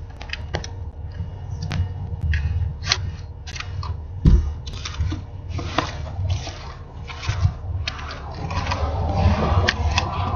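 Handling noise from a small quadcopter's battery lead and plug being worked by hand: irregular clicks, taps and rubbing over a steady low rumble, with a louder knock about four seconds in.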